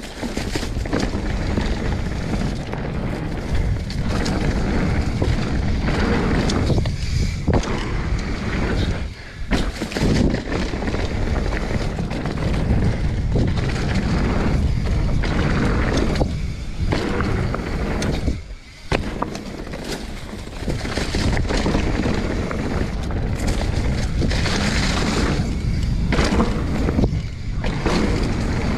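Mountain bike riding down a dirt singletrack: tyres rolling over packed dirt and dry fallen leaves, and wind buffeting the camera's microphone. It is a steady loud rush that drops away briefly a few times.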